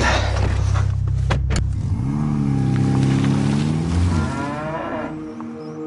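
A steady low engine rumble, then a single long low call of about two seconds that rises, holds and falls away. Music comes in near the end.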